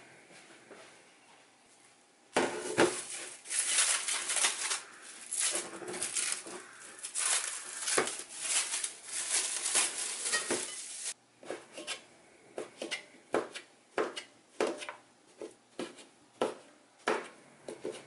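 Plastic cling wrap crinkling as it is pulled off a bowl of raw chicken gizzards, with a dense crackle that stops abruptly. Then a knife chops on a cutting board in sharp taps, about two a second.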